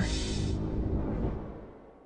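Background music fading out to silence.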